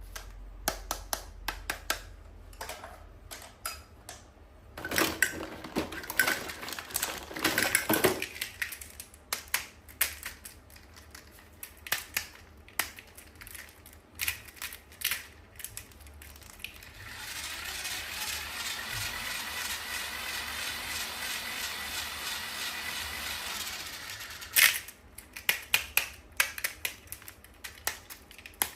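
Toys and their plastic packaging being handled: scattered clicks, taps and crinkling, with a denser burst of crinkling a few seconds in. From about 17 to 24 seconds a steady buzzing sound runs and then stops.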